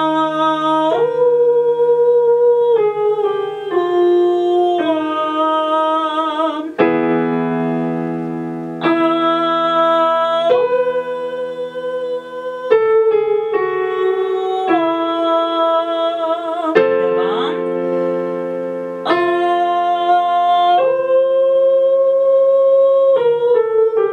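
Woman singing a vocal warm-up on the vowels 'a' and 'u', held notes with vibrato that step down through each phrase, over sustained chords on a digital piano. It is a chest-to-head-voice blending exercise, the phrase repeated several times.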